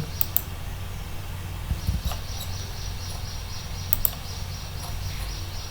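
Steady low electrical hum with a few short sharp clicks, a pair near the start and another pair about four seconds in, as a computer mouse is clicked.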